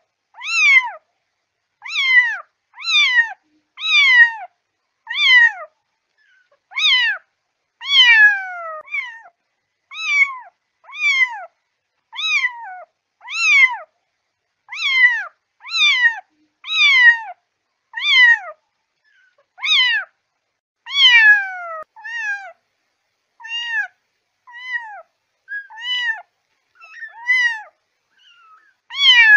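A kitten meowing over and over, about one high-pitched call a second, each call sliding down in pitch. In the last few seconds the calls are shorter and rise, then fall.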